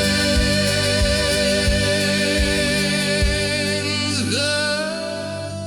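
Closing bars of a folk-ballad song: sustained chords over a steady beat, then a sung note swoops up about four seconds in and is held as the music begins to fade.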